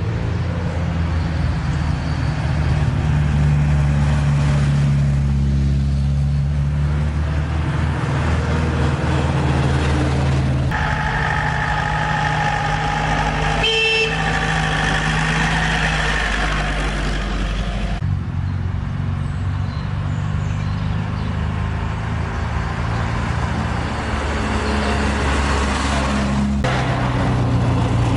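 Old car engines running, with steady horn-like tones sounding for several seconds in the middle. The sound changes abruptly a few times.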